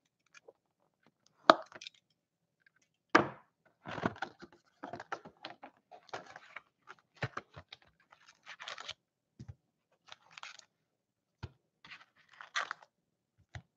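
A cardboard trading-card box being opened by hand: two sharp clicks as the lid is worked loose, then scattered crinkling and rustling as the foil card packs are lifted out.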